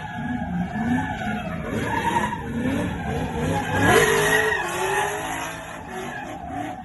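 VE Commodore drift car's engine revving hard, its pitch rising and falling, with tyres skidding; loudest about four seconds in.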